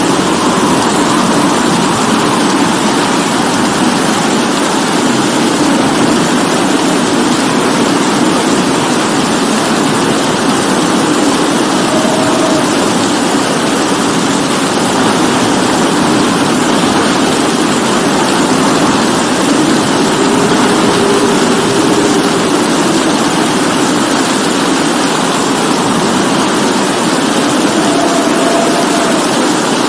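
Steady rainfall, a continuous even hiss of rain.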